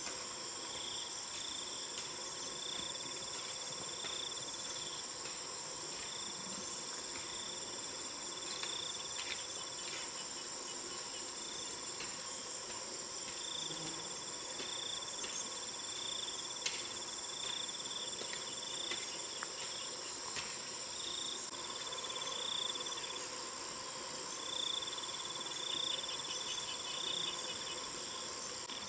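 Chorus of insects calling: a steady high-pitched drone with several constant tones, overlaid by a pulsing trill that comes and goes every few seconds.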